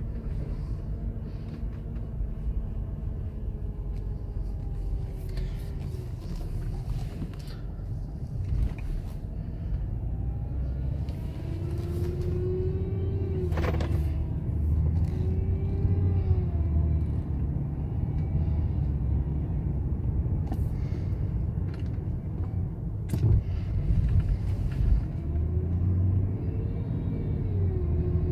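BMW F10 535i: a steady low rumble with a recurring whine that rises and falls in pitch many times, with occasional clicks. This is the unexplained weird noise the owner is documenting.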